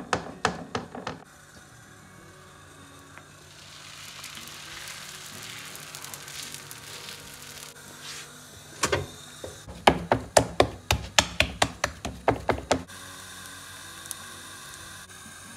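Roti dough being pressed out by hand on a plate with a few soft knocks, then a thin roti cooking on a flat griddle pan with a faint sizzle. A run of quick sharp taps comes about ten seconds in, under quiet background music.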